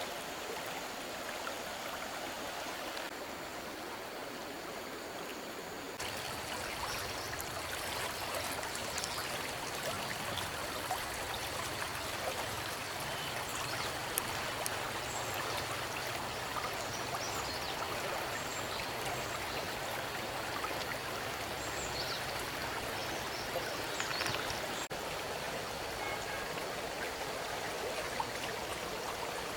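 Stream water running steadily, with a few faint clicks and small splashes in it.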